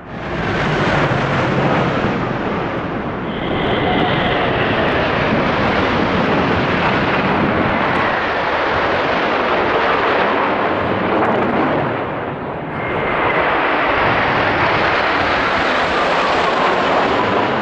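Military aircraft flying low overhead: a loud rush of engine noise swells in under a second in, with whines that fall in pitch as the planes pass. It eases briefly about twelve seconds in, then rises again as the next formation passes.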